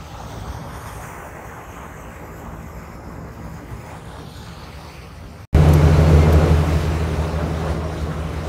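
Ship's engine drone with wind and water noise; it cuts abruptly to a much louder, closer drone about five and a half seconds in, then slowly eases off.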